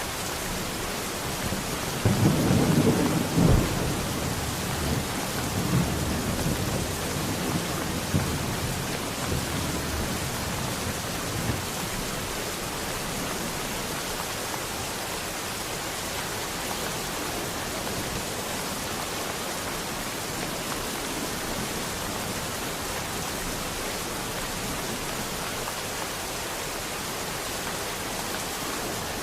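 Steady rain falling in a thunderstorm, with a loud clap of thunder about two seconds in that rumbles on in weaker swells for several seconds before only the rain is left.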